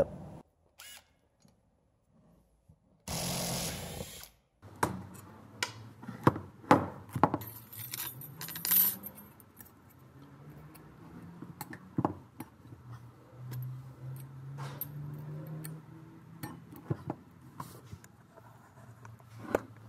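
Small metal parts of a brake caliper, the slide pin and bolts, the caliper body and its bracket, clinking and knocking as they are handled and set down on a workbench, in many separate sharp clicks. About three seconds in there is a short burst of noise lasting just over a second.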